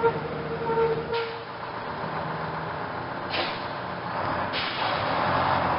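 Bus running, with a steady whine through the first second and a half and three short hisses of air.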